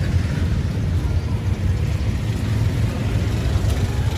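Steady low rumble of outdoor background noise, with no single distinct event standing out.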